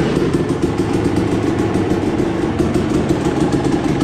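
Freshly rebuilt 2006 Suzuki RM250's single-cylinder two-stroke engine idling steadily; it runs well.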